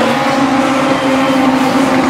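Legends race cars' 1250 cc Yamaha motorcycle engines running hard at high revs, a steady high-pitched drone.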